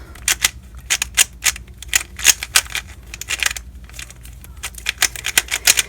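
MoYu RS3M 2020 3x3 speedcube being scrambled by hand: quick, irregular plastic clicking and clacking as the faces are turned, with a short lull about three seconds in.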